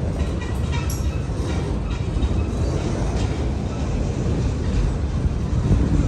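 Autorack cars of a Norfolk Southern manifest freight train rolling past: a steady rumble of steel wheels on the rails, with a few faint squeaks in the first second.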